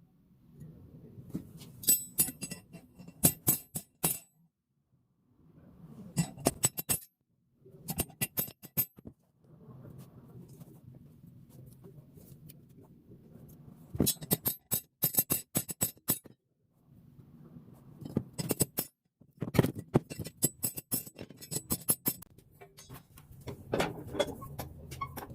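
Metal parts clinking and tapping in quick clusters of sharp, ringing clicks over a low steady hum, in short sections that start and stop abruptly.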